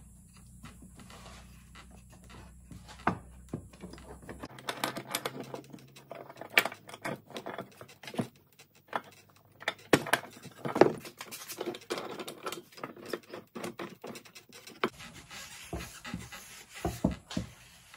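Handling noise of small clamps being set and tightened on two glued wooden boards: irregular clicks and knocks of the clamps and wood.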